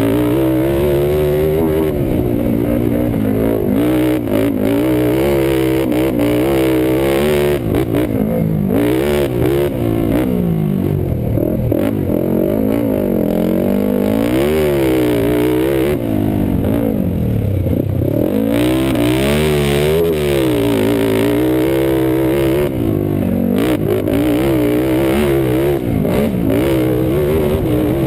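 Single-cylinder four-stroke sport quad (ATV) engine, heard close up from a helmet-mounted camera, revving up and falling off again and again as it is ridden hard around a dirt motocross track.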